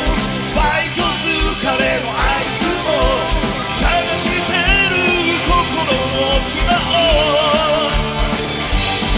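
Live rock band playing: a steady kick drum beat about twice a second under electric guitars, bass and keyboards, with a melody line that bends and wavers over the top.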